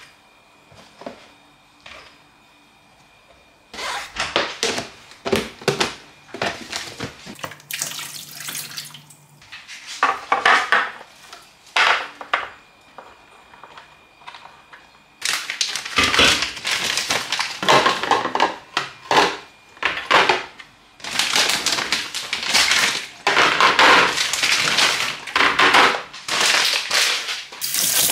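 Handling sounds of food storage: plastic bags crinkling and vegetables being knocked into clear plastic boxes, in busy bursts of rustling and clatter that grow louder about halfway through. A kitchen tap starts running right at the end.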